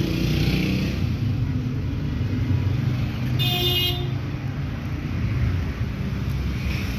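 Steady low rumble of traffic, with one short, high-pitched beep about three and a half seconds in.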